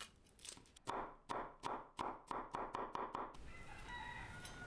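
Kitchen knife chopping garlic cloves on a wooden cutting board: a run of quick, regular strokes that speed up, then stop a little over three seconds in.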